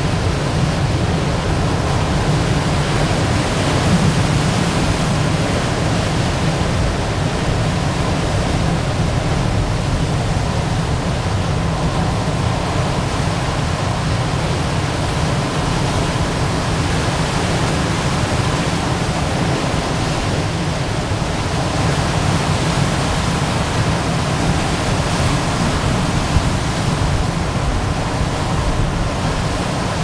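Ocean surf breaking and washing onto rocks: a steady, even rush of noise, heaviest in the low end, with no single wave standing out.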